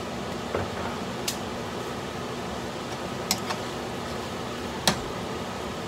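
A metal spoon clinking against a wok as shrimp and tomatoes are stirred: a handful of short, sharp clinks, the loudest near the end, over a steady background hiss.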